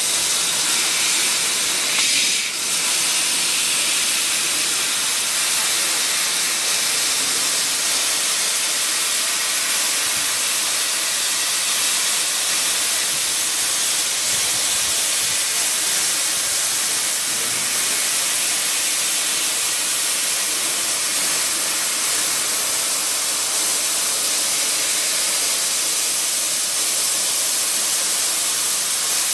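CNC laser cutter cutting 20 mm brass plate: a steady hiss of the assist-gas jet blowing through the cut at the nozzle.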